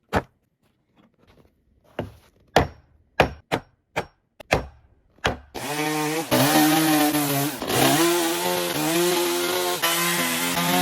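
About ten sharp, separate knocks over the first five seconds. Then, about five and a half seconds in, a petrol two-stroke chainsaw starts running and cutting into wood, its engine pitch shifting as it bites.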